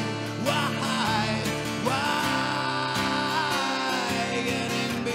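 A song sung to an acoustic guitar: a voice holding long, wavering notes over strummed chords, with one note held for over a second in the middle.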